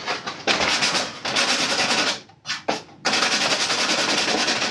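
Coarse 60-grit sandpaper on a hand sanding block scraping over hardened fibreglass body filler on a plastic motorcycle fairing, in a few scratchy strokes with short pauses, the last stroke the longest.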